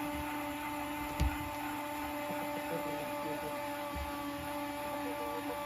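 A steady electrical hum, one even pitch with overtones, with a single low thump about a second in.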